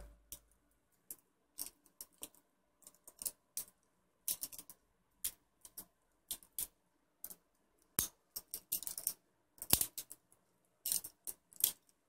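Trainer butterfly knife (balisong) being flipped by hand: a string of sharp, irregular metallic clicks and clacks as the handles swing open and shut against the blade, sometimes in quick clusters.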